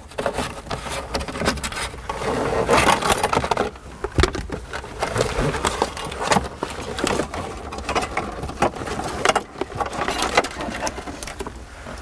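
Rustling and irregular plastic clicks of a wiring harness and connectors being worked loose under a pickup truck's dashboard.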